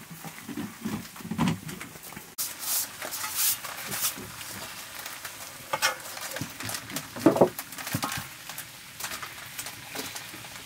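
Nettle greens sizzling in a black iron wok over a wood fire, with a metal spatula scraping and stirring in the pan. Scattered sharp clicks and a louder clank about seven seconds in come as a metal plate is set over the wok as a lid.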